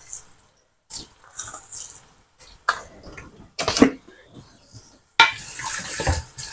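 A few light clicks and knocks of a spoon and plastic spice box, then, about five seconds in, a wooden spoon stirring sliced onions that sizzle in oil in an aluminium pressure cooker, with a steady hiss.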